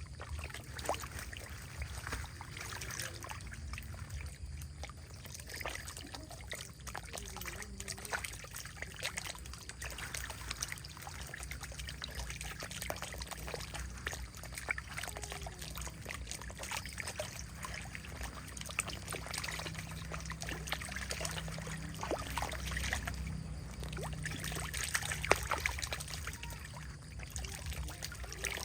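Water trickling: a continuous, irregular patter of small clicks over a low rumble.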